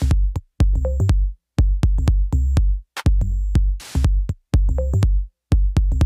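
Electronic background music with a drum-machine beat and heavy bass, playing in short stop-start phrases.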